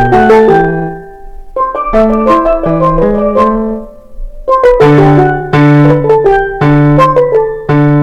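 Steelpans playing a quick melody of struck, ringing notes over lower bass notes. The music dips briefly about a second in and again about four seconds in.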